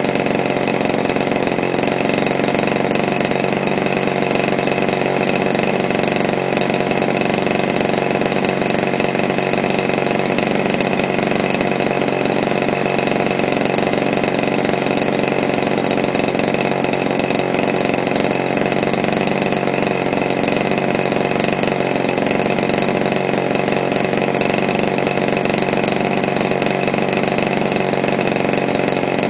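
DLE-30 single-cylinder two-stroke gasoline engine on an RC model biplane, running at a steady speed and spinning its propeller. The engine is new and on its break-in run.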